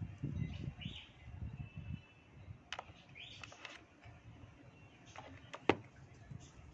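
Handling of hand blender parts: soft thumps and rustling, then a few sharp clicks, the loudest near the end, as pieces are fitted. A couple of brief high chirps sound early on and about halfway.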